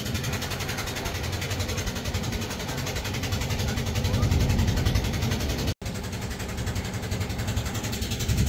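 Boat engine running steadily under way, with a deep, low hum over a broad hiss of water and wind. The sound drops out completely for an instant a little before six seconds in.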